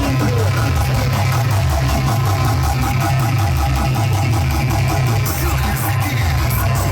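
Loud music with very heavy, pulsing bass and a steady beat, blasted through a paredão, a car-mounted wall of subwoofers and speakers.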